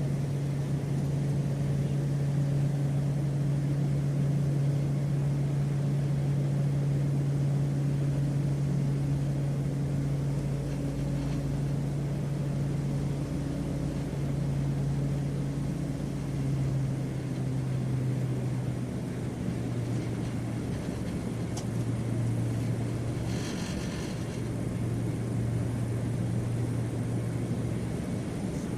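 Passenger airplane's engines droning steadily, a low hum with a slight drop in pitch a little past halfway. A brief hiss comes near the end.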